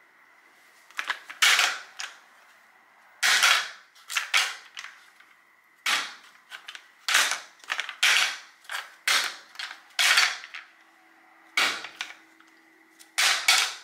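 Homemade cardboard model car being handled and folded by hand: about a dozen sharp, irregular creaks, clicks and knocks from its hinged cardboard frame and wheels against the tile.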